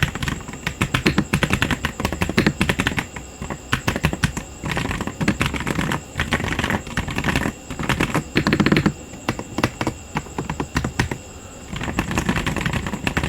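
Typing on a Gamen Titan 6 mechanical keyboard with Otemu linear switches: fast runs of keystrokes in bursts, broken by short pauses.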